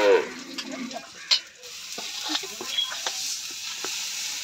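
Onion and tomato sizzling in hot oil in a kadhai over a wood fire, with a steel spoon stirring and scraping the pan and one sharp clack about a second in. The tail of a cow's moo fades out at the very start.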